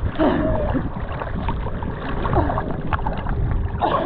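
Choppy seawater sloshing and splashing against a camera held at the waterline, with wind buffeting the microphone.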